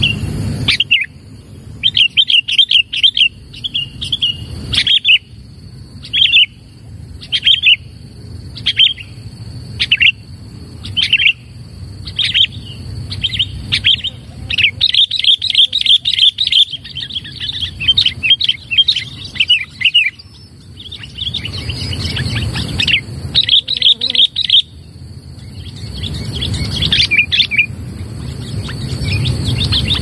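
Sooty-headed bulbul calling in short chattering bursts of whistled notes, roughly one burst a second. The bursts run together into a longer rapid chatter in the middle and again near the end.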